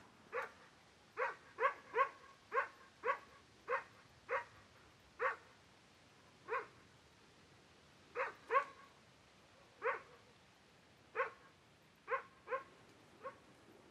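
A dog barking repeatedly, about seventeen short barks at an uneven pace, some coming in quick pairs.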